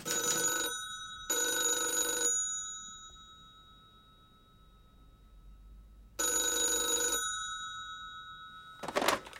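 Telephone bell ringing in short bursts, two close together and a third about six seconds in. This is an incoming call that is answered straight after. A short knock near the end.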